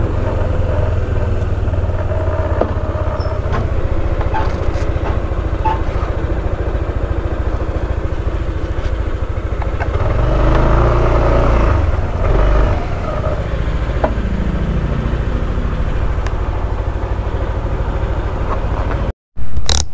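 Yamaha scooter engine running at idle with a steady, even rumble. It rises in speed about ten seconds in as the bike moves off a short way, climbs again briefly, then settles back to idle.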